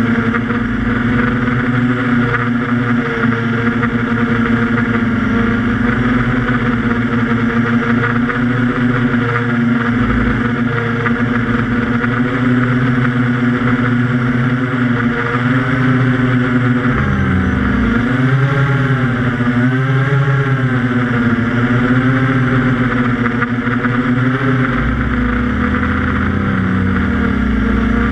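QAV400 quadcopter's motors and propellers buzzing steadily in flight, heard through the onboard camera. Past the middle the pitch swings up and down several times, then settles again.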